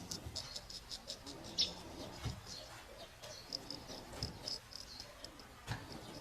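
A straight razor shaving stubble: the blade scrapes in short strokes, making a run of small, irregular, high-pitched ticks with a few stronger strokes.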